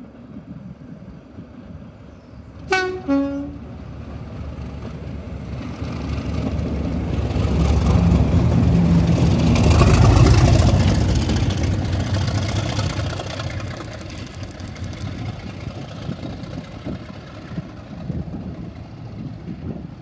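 Two Class 37 diesel locomotives sound a brief two-tone horn, a high note then a low one. Their English Electric V12 engines then swell loudly as the pair pass close by, and fade away as they recede.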